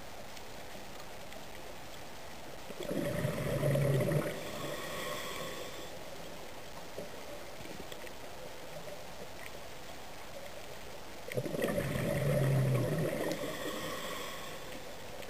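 A scuba diver's exhaled breath bubbling out of the regulator underwater, in two surges about eight seconds apart, over a steady underwater hiss.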